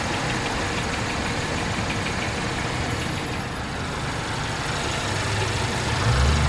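Infiniti Q50 2.0t's turbocharged four-cylinder engine idling with a fast, light tapping, a noise the owner says started after the first oil change. A louder low rumble comes about six seconds in.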